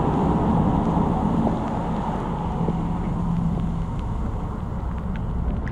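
Automatic car wash's overhead air-dryer blowers running with a steady rush and a low hum, growing a little fainter near the end as the car moves out from under them.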